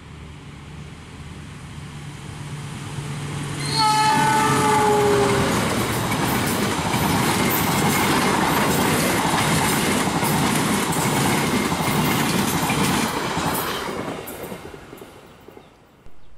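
Indonesian diesel-hauled passenger train approaching at speed with a low drone, its horn sounding for about a second and a half with a slightly falling pitch as the locomotive passes. The coaches then rush past loudly with the clatter of wheels over rail joints, fading away near the end.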